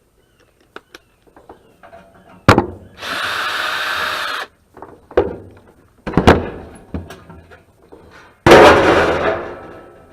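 Metal knocks and clanks from a dehumidifier being taken apart. A power drill runs steadily for about a second and a half. Near the end there is a loud metallic crash that rattles away over a second or so.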